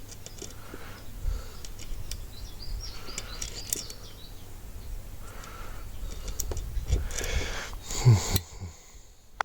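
Birds chirping in the background over a low steady rumble, with a warbling trill about three seconds in, scattered faint clicks, and a short louder low sound just after eight seconds.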